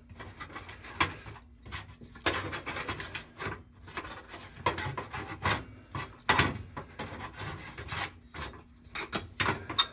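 Scraping, rubbing and irregular clicks and knocks of metal parts being handled as a new hot-surface oven igniter and its wiring are pushed back into place under the oven floor and screwed in.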